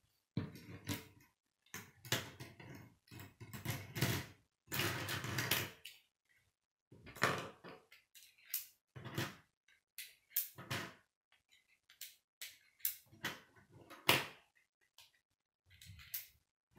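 K'nex plastic pieces clattering as a hand rummages through a pile on a wooden tabletop for the first few seconds. After that come separate sharp clicks and knocks, one or two a second, as rods are snapped into connectors.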